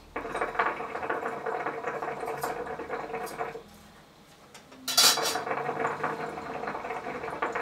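Nargile (hookah) water base bubbling and gurgling as smoke is drawn through the hose: two long draws of about three seconds each, separated by a pause of just over a second, the second starting with a short sharp hiss.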